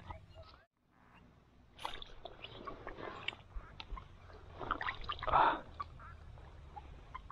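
Shallow marsh water sloshing and splashing, with small clicks and rustles in the grass at the water's edge. There are two swells of splashing, the louder one about five seconds in.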